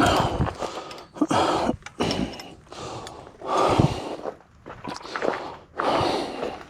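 A person breathing heavily: four loud, noisy breaths about one and a half to two seconds apart.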